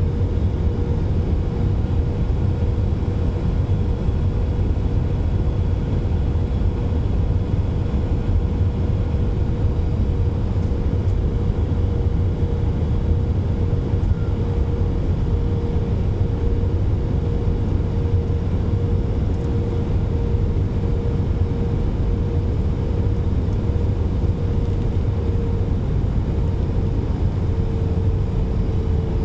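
Airbus A320 cabin noise heard from a window seat over the wing in flight: a steady, loud rumble of jet engines and airflow with a steady mid-pitched tone running through it, which dips slightly in pitch near the end.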